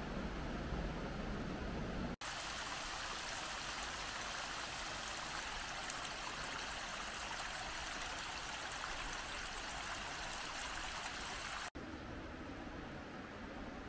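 A mountain river rushing with a steady hiss. It comes in with an abrupt cut about two seconds in and is cut away again near the end. On either side of it is a duller low rumble.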